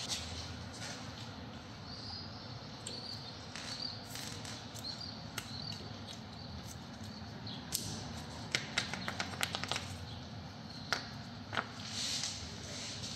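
A ratchet or spanner working the lower guide-pin bolt of a front brake caliper: a few metallic knocks and, past the middle, a quick run of about eight clicks. Faint high chirps are heard in the first half.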